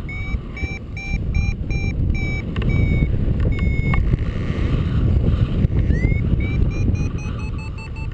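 Paragliding variometer beeping rapidly, about three short beeps a second, breaking off midway and starting again with the pitch creeping higher: the climb tone of a glider rising in lift. Heavy wind rumble on the microphone runs underneath.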